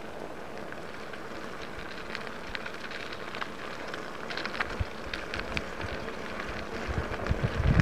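A bicycle rolling over a wet gravel road: a steady hiss with small crackles and ticks from about two seconds in. Wind rumbles on the microphone near the end.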